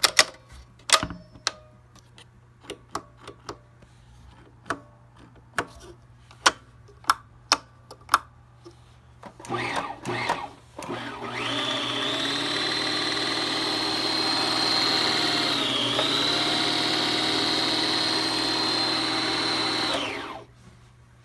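A series of sharp clicks, then a Bernina sewing machine's electric motor running steadily under the foot pedal with a high whine for about eight seconds, dipping briefly in speed midway before it stops. The seller says the motor runs while the needle does not move and gives off a burning smell, and takes this for a motor going bad.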